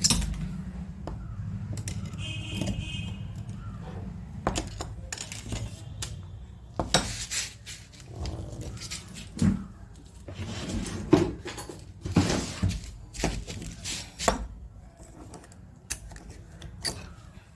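Irregular metallic clinks and knocks, as of tools and metal parts being handled. They are sparse at first and come in quicker, louder clusters from about seven seconds in.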